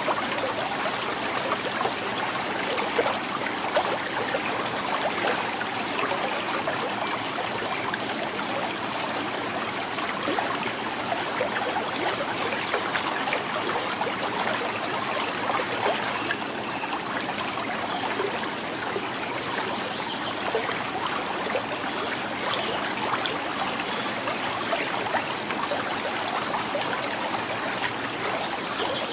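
Small river flowing and gurgling steadily, with many small irregular trickles and splashes over the rush of the water.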